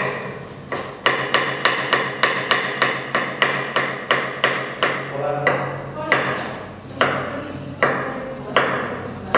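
Chef's knife slicing a carrot on a wooden cutting board: sharp knocks of the blade on the board, about three a second, slowing to roughly one a second in the second half.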